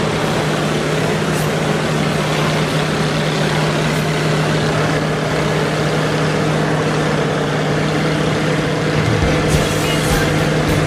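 Nanchang CJ-6's nine-cylinder radial engine and propeller droning steadily in flight, heard from inside the cockpit with a constant rush of wind noise.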